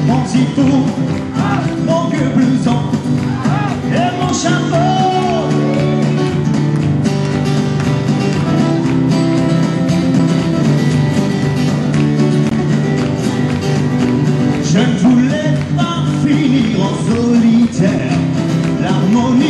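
Country song performed live: a male voice singing in phrases over guitar and a drum-machine beat.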